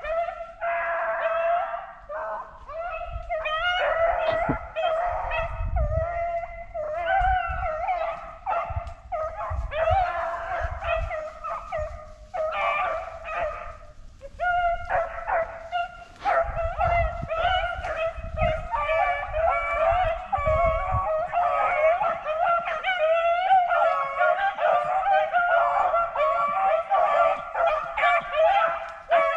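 A pack of beagles baying together on a rabbit's track, many voices overlapping in a near-continuous chorus with only brief lulls.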